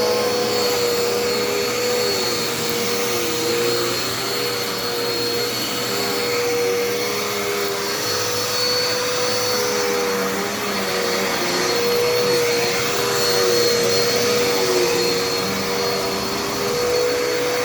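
Vacuum cleaner running steadily: a constant motor whine with a second, lower tone that wavers up and down in pitch.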